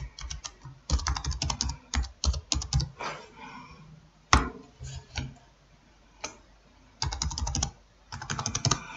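Typing on a computer keyboard: quick runs of keystrokes for the first few seconds, then a few single key presses, then another fast run near the end.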